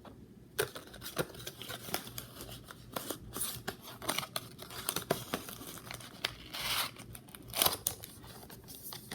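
Close handling of unboxing packaging: a small plastic packet and its wrapping crinkling and rustling, with irregular sharp clicks and taps and several short rustles.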